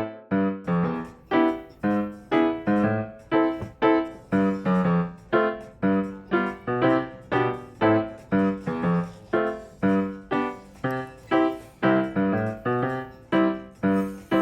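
Background music: a light piano or electric-piano tune of evenly paced, plucky notes at about two to three a second.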